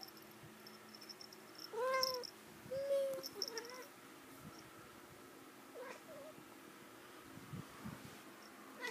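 Domestic cat meowing: two loud meows about two and three seconds in, and a fainter short call around six seconds.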